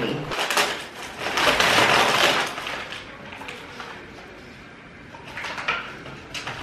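Parcel wrapping rustling and crinkling as a mailer is torn open and its contents unwrapped, loudest about one to two and a half seconds in, then softer rustling with a few short crackles.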